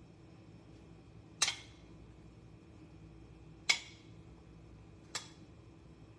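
Metal kitchen tongs clinking three times against plates and each other while grilled chicken strips are laid onto a salad. The clinks are short and sharp, each with a brief ring.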